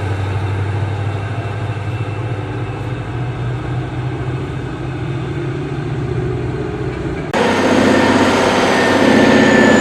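Heavy diesel engines of large mining machines running, a steady low drone. About seven seconds in it switches abruptly to a louder, rougher engine sound with a thin high whine over it.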